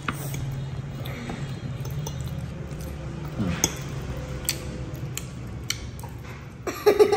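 Metal fork clicking and scraping against a plate of pumpkin pie, in scattered short sharp clicks, over a steady low hum.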